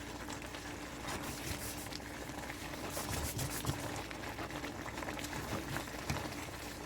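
A pan of creamy beef stroganoff sauce with mushrooms simmering on the stove, bubbling and crackling with small irregular pops.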